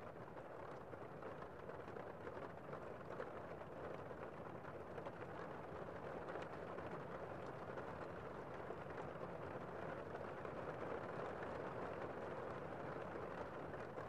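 Heavy rain heard from indoors: a steady, muffled hiss of rainfall with little high treble.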